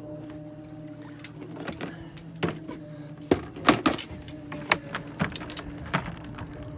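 Landing net knocking and rattling against the boat's side and a plastic tub as a netted king salmon is lifted aboard: a run of sharp knocks, loudest about three and a half seconds in. A steady engine hum runs underneath.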